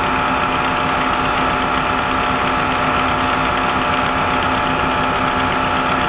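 Milling machine running steadily with a constant motor and spindle hum, its end mill spinning just above brass round stock as the work is raised to touch off the cutter.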